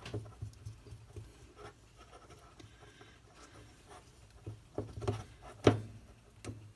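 Fingers kneading a crumbly cornstarch-and-conditioner dough in a small glass bowl, with soft irregular scraping and rubbing and small ticks against the glass. A sharp knock stands out about five and a half seconds in, the loudest sound, with another shortly before the end.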